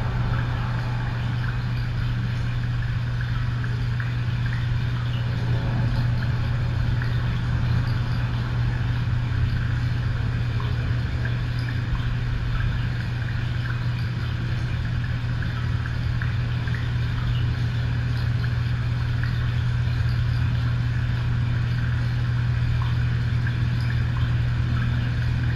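A steady low hum with a light hiss above it, unchanging, like a fan or ventilation unit running.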